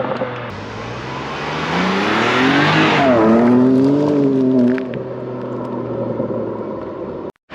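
BMW M2 Competition's twin-turbo straight-six driving by under acceleration: the engine note climbs, drops sharply in pitch as the car passes about three seconds in, then fades away.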